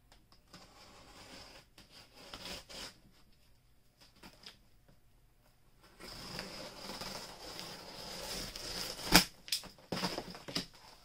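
Olfa Touch Knife slicing through the packing tape along a cardboard box's seam: light taps and clicks of handling at first, then a few seconds of scraping cut about six seconds in, a sharp snap about nine seconds in, and the cardboard flaps rustling as they are pulled apart near the end.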